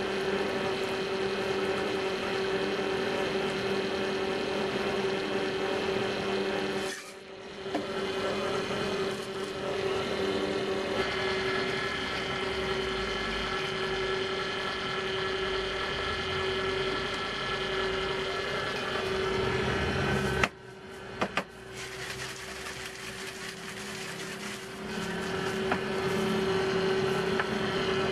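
Steady electrical machine hum with a constant pitch and fixed overtones, broken by two short drops at edit cuts, about a third of the way in and again about three quarters in.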